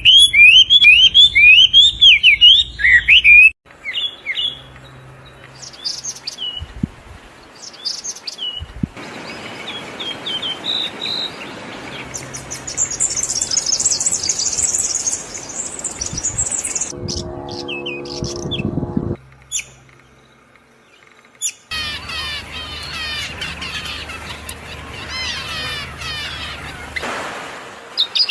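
Small birds chirping and calling in several separate stretches: a fast, loud run of chirps at the start, a high thin trill in the middle, one lower, harsher call a little past halfway, and more chirping near the end.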